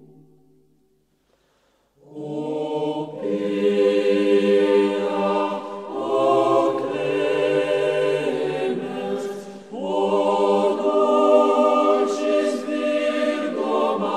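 A choir singing in long, held notes, entering about two seconds in after a brief silence.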